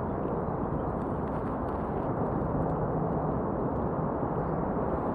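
Steady wind rush on the microphone of a camera on a moving bicycle, mixed with rolling rumble and a few faint clicks.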